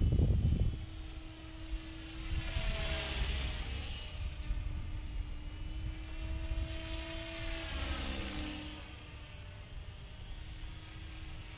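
Align T-Rex 500 electric radio-controlled helicopter in flight at a distance: a steady high whine of motor and rotors, growing louder twice, about three and eight seconds in.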